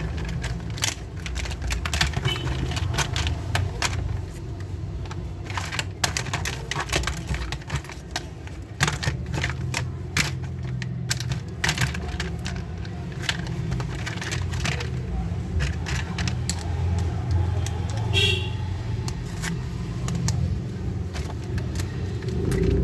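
Irregular clicks and rattles of plastic toy gun parts being handled and taken apart, over a steady low hum.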